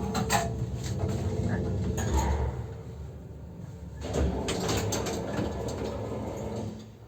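MLZ passenger lift working: a low rumble of the lift with sharp knocks and clatter from its sliding doors and mechanism, including a heavier thump about two seconds in. The rumble eases off near the end.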